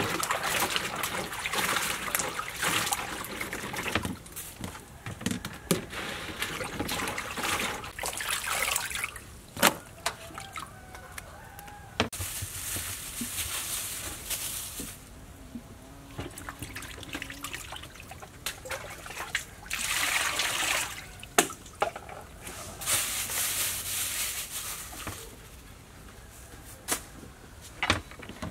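Water sloshing and splashing in a metal basin as hands wash asparagus, in repeated bursts with quieter pauses between. Near the end, a few sharp taps of a knife on a wooden cutting board.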